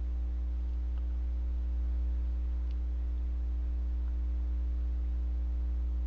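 Steady electrical mains hum with a ladder of higher overtones, and a faint tick about two and a half seconds in.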